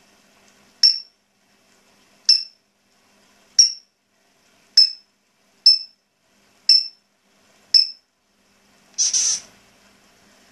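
African grey parrot giving seven short, sharp high whistles about a second apart, each dropping quickly in pitch, then one longer, harsher squawk near the end.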